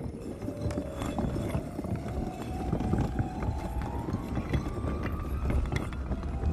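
A brick wall opening by magic: many bricks clicking and knocking as they shift and fold back, over a low rumble of grinding stone, with a thin tone that climbs in small steps throughout.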